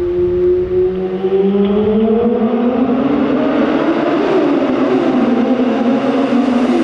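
Motorcycle engine running inside a road tunnel. Its pitch climbs over the first few seconds, then drops about four and a half seconds in and holds lower.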